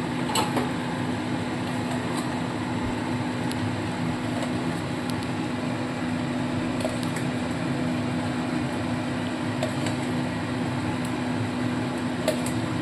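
A steady mechanical hum with one constant low tone, unchanged throughout, with a few faint small clicks.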